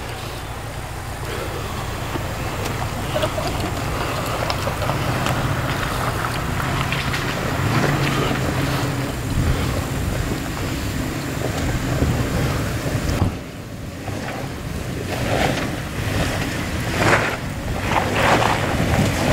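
Jeep Wrangler's engine running under load as it crawls up a rocky trail, growing louder as it approaches, with wind on the microphone. The sound dips briefly about two-thirds through, and several short, sharp noises come near the end.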